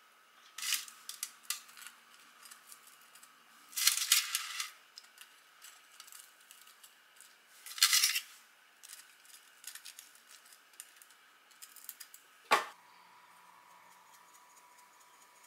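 Kitchen handling sounds: wooden chopsticks lifting crisp fried breaded shrimp off the parchment paper liner of an air fryer basket onto a plate, heard as a few short crisp rustles with light clicks. One sharp click comes near the end.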